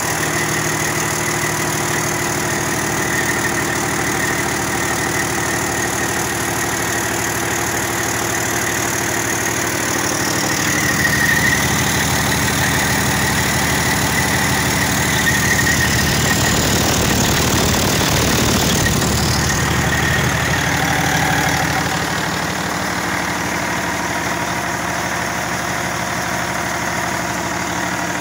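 Detroit Series 60 12.7L inline-six turbodiesel engine running on a test run, a steady diesel clatter. From about ten seconds in it grows louder and rougher for about ten seconds, then settles back to its earlier steady note.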